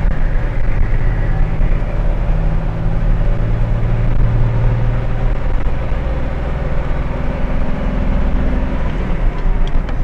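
A 2000 International Blue Bird school bus's diesel engine pulling steadily under load up a grade, heard from inside the cab over road and tyre noise.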